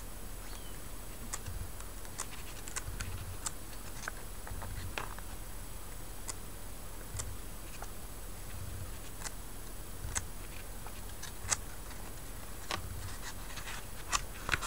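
Pages of a thick glossy catalog being turned by hand: scattered light paper clicks and ticks, with faint low bumps from handling the book.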